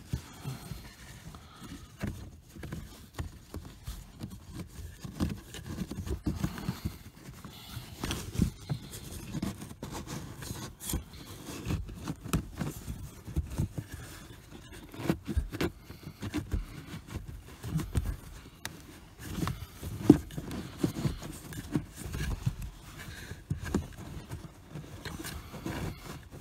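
A pleated paper cabin air filter being bent and worked by hand into its plastic housing behind the dashboard trim: irregular crinkling, scraping and small knocks of filter and hand against plastic, with one sharper knock about twenty seconds in.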